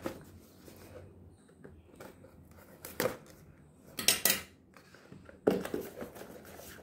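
Hands handling and opening a small cardboard box: a few short scrapes and taps of the cardboard, the loudest a quick cluster about four seconds in and a longer scraping one about five and a half seconds in.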